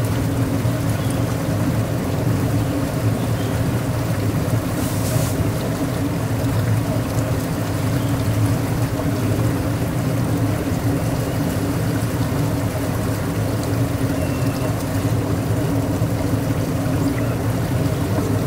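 Tour boat's motor running with a steady low hum, and water washing along the hull. A brief hiss about five seconds in.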